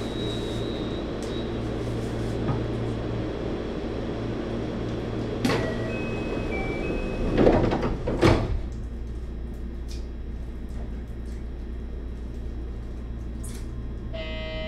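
JR 223 series electric train standing at the platform with a steady hum from its onboard equipment. About six seconds in, short electronic beep tones sound, then the sliding doors close with two loud thuds, just before departure. A buzzing tone follows near the end.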